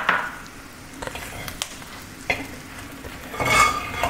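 Clam meat roast frying in oil in an aluminium pot, a steady sizzle, while a metal slotted turner stirs it, clicking and scraping against the pot several times with a louder scrape about three and a half seconds in.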